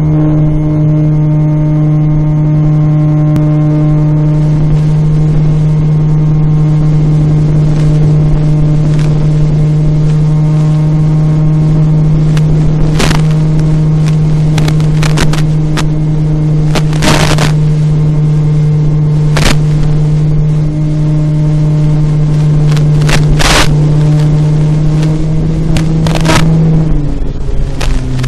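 Electric motor and pusher propeller of a Mowe flying wing running at steady throttle, heard from the onboard camera's microphone as a loud, even hum at one pitch. Short crackling bursts of noise break in several times, and near the end the pitch drops as the throttle is eased.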